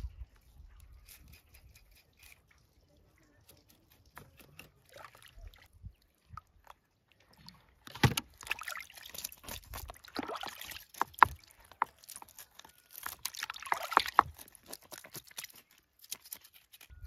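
Water sloshing in a plastic basin as whole fish are handled and scraped with a knife to remove the scales, with sharp scraping clicks. Faint for the first half, then louder splashing and scraping from about halfway, easing near the end.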